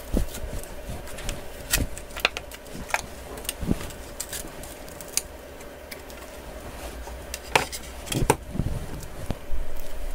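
Scattered small clicks, taps and scrapes of a plastic opening card against the glass and frame of a Samsung Galaxy S22 Ultra as the glued back glass is pried free and lifted off, louder and bunched together near the end. A faint steady hum runs underneath.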